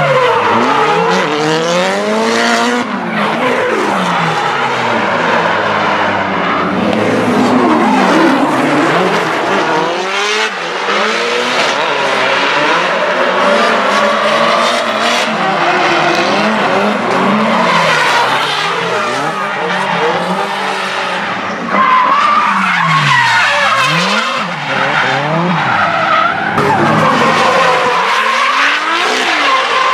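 Drift cars sliding past one after another, engines revving up and down through the corners over screeching tyres. The loudness jumps suddenly about two-thirds of the way through.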